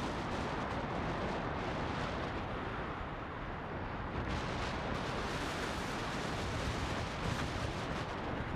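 Wind buffeting an action camera's microphone while a mountain bike descends a rough dirt trail, the tyres and frame rattling over bumps: a dense, steady rushing noise with frequent knocks.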